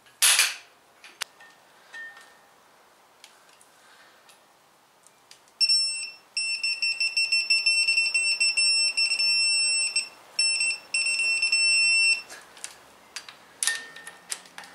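Electronic torque wrench beeping steadily for about six seconds from roughly the middle, with a few brief breaks, as a flywheel bolt is pulled up to its 74 ft-lb setting; the beep signals that the set torque has been reached. A short loud noise comes at the very start, another comes near the end, and light ratchet clicks are heard throughout.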